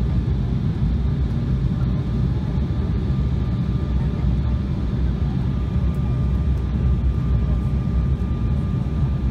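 Steady cabin noise inside an Embraer E170/E175 regional jet in flight: a deep rumble of the turbofan engines and airflow with an even hiss over it, and a faint steady high whine.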